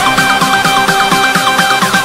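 Background music: an electronic track with a steady, fast beat and quick repeating synth figures.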